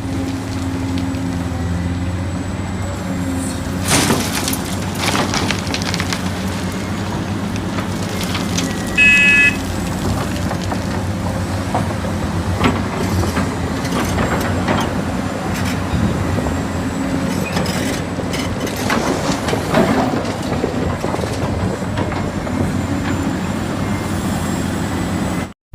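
Heavy excavator's diesel engine running steadily while it digs earth, with scattered knocks and clanks of the bucket and arm. A short high beep sounds about nine seconds in.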